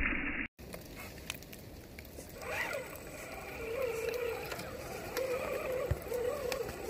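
Small electric motor and gear drivetrain of an RC scale crawler truck whining as it drives: a quick rising whine about two and a half seconds in, then a wavering whine that rises and falls with the throttle, over faint scattered ticks.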